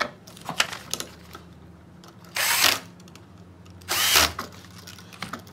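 Cordless drill/driver spinning in two short bursts, about half a second each, at roughly two and a half and four seconds in, driving the receptacle's silver neutral terminal screws down onto the white wires. Light clicks of the wires and receptacle being handled come before.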